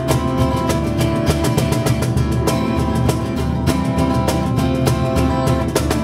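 Instrumental passage of live acoustic music: strummed acoustic guitar chords over hand percussion, with a shaker keeping a steady, even beat.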